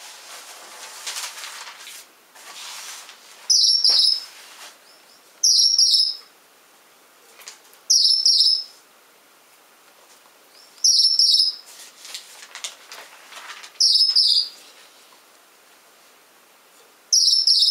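Male Gouldian finch repeating a very high-pitched call six times, each one short, under a second, spaced two to three seconds apart.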